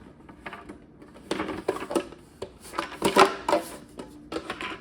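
Hard plastic parts of a countertop water filter being handled, knocking and clicking against each other. There is a quick run of clicks and knocks, loudest about three seconds in.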